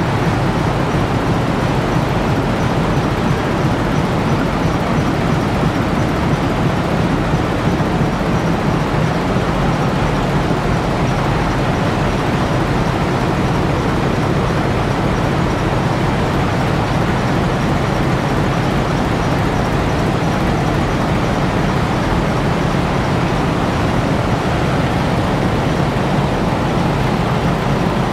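Steady vehicle noise: an even rush with a low hum underneath, unchanging throughout.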